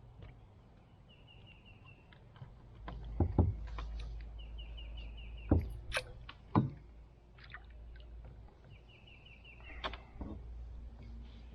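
Hollow knocks and bumps against a kayak, three of them loud, while a crawdad trap is handled from the boat. A bird repeats a quick run of high notes three times.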